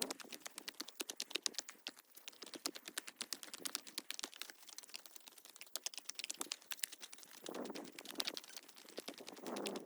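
Rapid, irregular clicking and knocking, several times a second: footsteps and freshly cut wooden boards knocking together as they are carried by hand. A couple of breathy, hissing noises come near the end.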